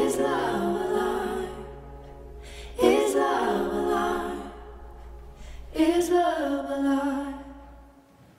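Closing a cappella vocal harmonies from a recorded song: three sustained sung chords, each starting about three seconds apart and fading away, over a low hum that cuts off just before the end.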